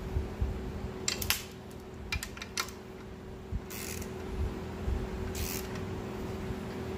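Speed wrench and socket turning the bolts of a clutch pressure plate: a run of metallic clicks in the first three seconds, then two short rasps, over a steady low hum. The bolts are being snugged down so the pressure plate sits flush on the flywheel.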